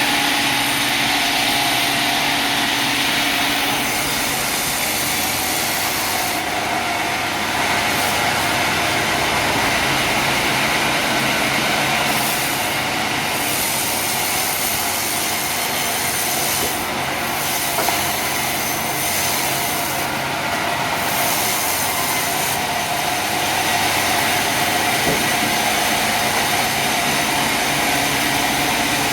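Sawmill machinery running steadily, a loud continuous mechanical drone with a constant hum, easing briefly in its highest hiss a few times.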